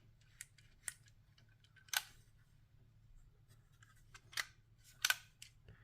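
Sharp clicks and taps of plastic LEGO pieces and a LEGO tool being handled and pushed inside a LEGO puzzle box, with the loudest clicks about two seconds in and twice more near the end.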